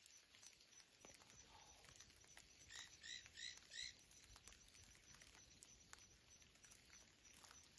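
Near-silent outdoor ambience, with four short, high, upward-hooked chirps in quick succession about three seconds in, about a third of a second apart.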